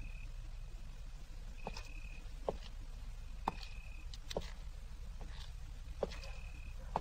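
Faint night ambience on a film soundtrack: a short high chirp repeats about every two seconds over a steady low hum, with a few sharp clicks in between.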